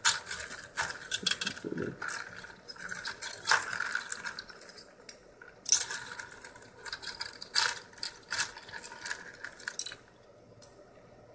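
Ice cubes clinking and knocking against each other and a plastic tub of ice water as hands shift the ice and push a cooler block in: an irregular run of sharp clicks that stops about a second before the end.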